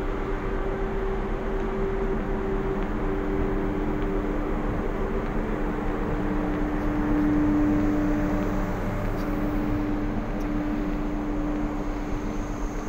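Wind rushing over the microphone on a cruise ship's open top deck at sea, over a steady low hum from the ship that swells a little around the middle.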